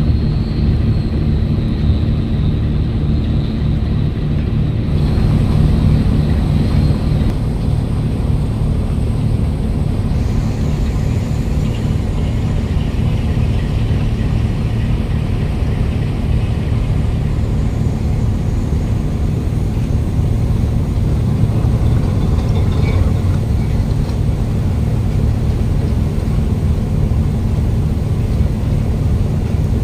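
Tugboat's marine diesel engine running steadily under towing load, a deep unbroken drone with a hum of water churning.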